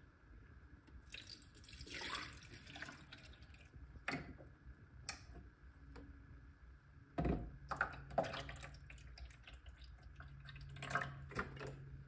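Water poured from a plastic jug into the reservoir of a Keurig 2.0 coffee maker, splashing for about two seconds. Then a few clicks, a thump about seven seconds in, and a low steady hum through the rest.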